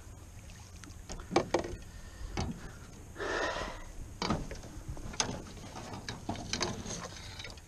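Landing net with a just-caught trout being brought into a canoe: a run of sharp knocks and clatter against the hull and gear, with a brief splashy rush about three seconds in.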